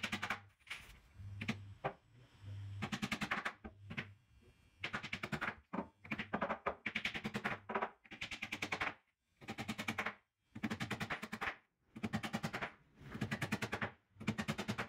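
Hammer driving nails into the plywood edge of a bed box, in repeated bursts of rapid blows about a second long with short pauses between them.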